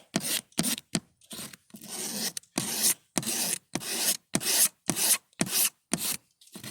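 Razor blade scraped hard across the oxidized plastic of a snowmobile trunk lid, in short quick strokes about two a second, each a rasping scrape. The blade is stripping off the chalky layer of weathered, oxidized plastic.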